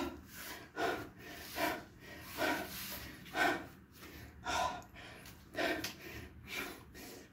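A man breathing hard through exertion, short forceful breaths about one a second, out of breath from floor core exercises.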